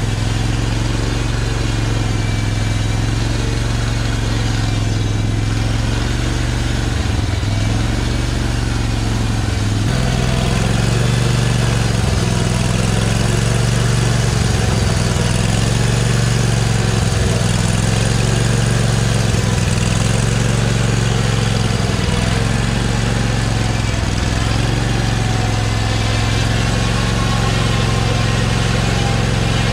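Sawmill's engine running steadily while a log is milled into lumber; about ten seconds in the sound grows louder and fuller.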